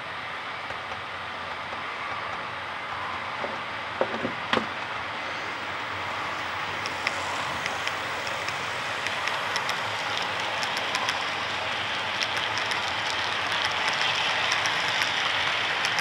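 Model freight train passing: a steady rolling and running noise that slowly grows louder as the locomotive and cars come by. From about seven seconds in there are many small rapid clicks of wheels over the rail joints. There are a couple of sharp knocks around four seconds in.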